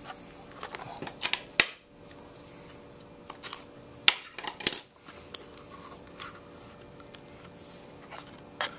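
Hands handling and opening a small cardboard trading-card box: scattered taps, clicks and brief rustling scrapes of card against card, with sharp clicks about a second and a half in and about four seconds in. A faint steady hum runs underneath.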